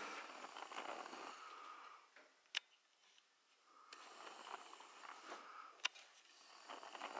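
Compact camera's motorized zoom lens whirring as it zooms in and out, with a sharp click about two and a half seconds in and again near six seconds. It is being tested after the camera was dropped and its lens cracked.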